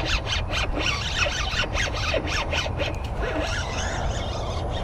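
Fishing reel being cranked, a fast uneven ticking rattle, over a low rumble of wind on the microphone.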